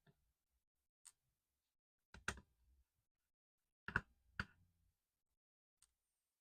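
A few scattered light clicks and taps of small tools and parts handled during a laptop teardown, some in quick pairs, with near silence between them.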